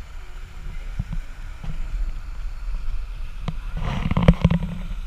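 Wind buffeting an action camera's microphone, a steady low rumble with a few faint clicks. About four seconds in there is a short louder burst of noise.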